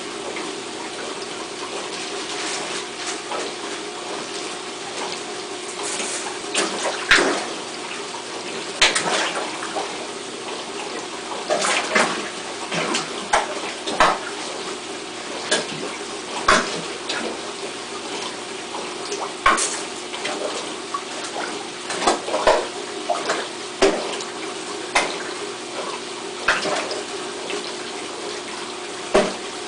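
Fish splashing at the surface of a large aquarium as they strike floating feed pellets: sudden splashes every second or two, some loud, over steady running water with a constant low hum.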